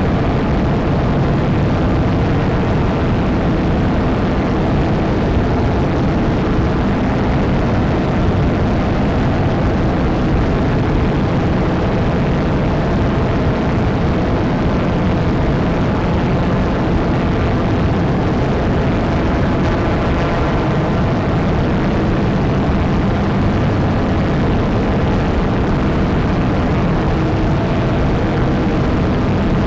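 A steady, dense droning noise made by playing a PXL-2000 camera's video cassette back as audio, slowed ninefold, and run through reverb and distortion. It holds an even level throughout, heaviest in the low and middle range, with faint steady tones inside the wash.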